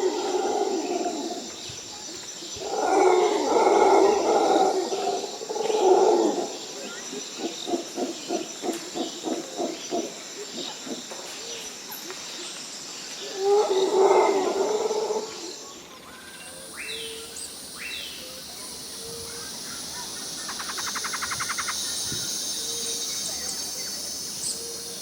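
Evening jungle ambience: a steady high-pitched insect drone under loud, harsh, repeated calls of jungle birds, including one run of about a dozen short evenly spaced notes. Partway through the background shifts, and a few falling whistles and a fast trill follow.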